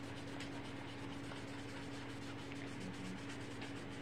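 Paintbrush scrubbing poster colour onto paper in quick repeated back-and-forth strokes, a soft rubbing sound over a steady low hum.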